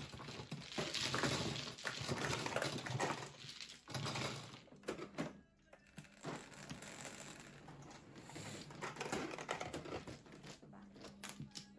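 Plastic mahjong tiles clattering as they are pushed into the centre opening of an automatic mahjong table. Then softer clicking from the table's shuffling machinery as the new tile walls rise, with a low steady hum near the end.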